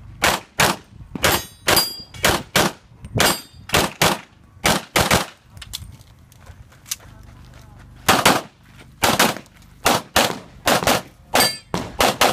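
Rapid semi-automatic pistol shots fired in quick strings, with a pause of about two seconds in the middle, and here and there the ring of steel plate targets being hit.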